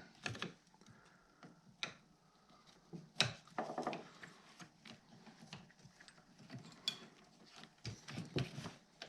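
Faint, scattered clicks and taps of a screwdriver working screws out of a snowmobile's plastic throttle block, with the loudest tap about three seconds in.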